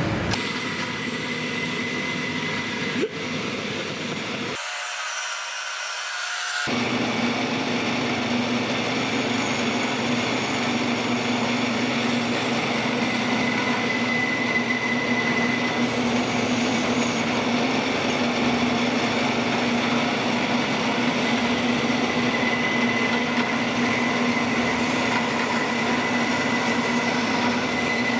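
Vertical band saw running and cutting small pieces of aluminum angle: a steady hum with a thin high whine, settling in about seven seconds in.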